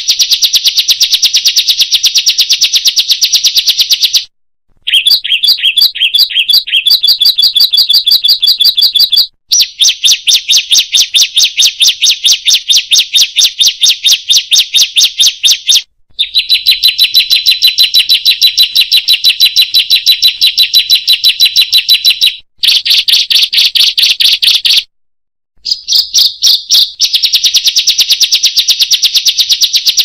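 Ciblek songbirds singing a rapid, continuous run of high chirping notes. This is a combined 'masteran' song track of three ciblek songs, whose pattern changes between sections and breaks off in a few brief gaps.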